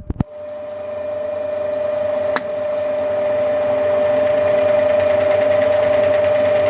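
Milling machine motor switched on with a click, spinning up and then running steadily with a whine. A single sharp click about two seconds in.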